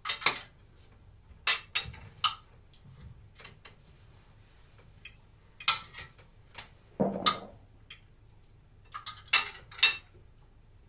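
Knives and forks clinking and scraping on china dinner plates: scattered sharp clinks, with a duller knock about seven seconds in.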